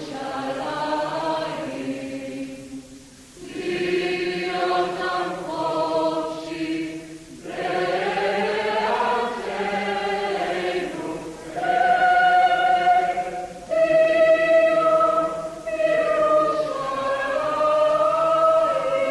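A choir singing a slow song in long held phrases, with short pauses between them.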